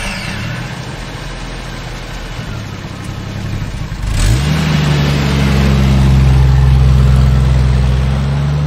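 Taxi's car engine running just after being started. About four seconds in it revs up sharply and holds at higher revs, louder.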